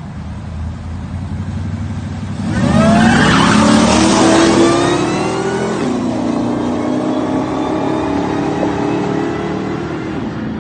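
V8 drag-race cars idling, then launching about two and a half seconds in: a loud burst of engine noise rising in pitch as they accelerate hard, with a gear shift about three seconds later, after which the engines fade as they pull away.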